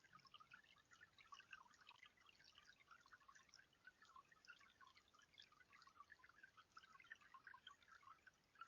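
Faint water trickling from a bird bath fountain: a dense, steady run of small drips and plinks.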